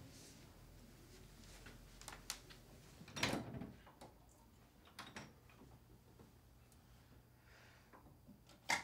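A bedroom door's latch clicks and the door is pushed open, with a few small clicks around it. Near the end comes one sharp click as a wall light switch is flipped on.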